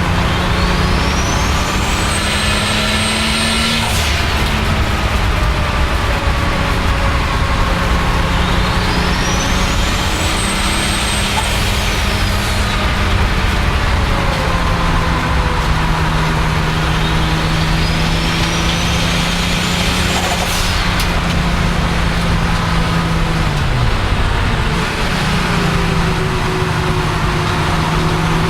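Turbocharged BMW 535i E34's 3.8-litre straight-six pulling hard, with a high turbo whistle that rises in pitch three times. Each whistle is cut off by a sharp blow-off valve release, and a fourth spool-up starts near the end.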